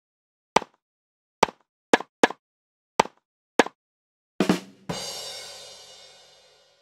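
Edited-in animation sound effects: six short pops at uneven intervals, then a heavier double hit and a bright crash that rings and fades away over about two seconds.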